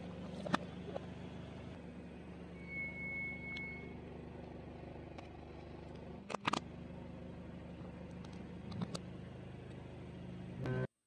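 A car engine idles steadily while a few sharp cracks and pops come from items crushed under its tyre, the loudest about six and a half seconds in.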